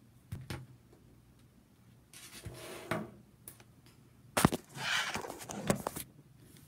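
Handling noise from a phone being held and turned upright: fingers tapping and rubbing against it, with scattered clicks, two stretches of scraping rustle and a sharp knock a little after four seconds in.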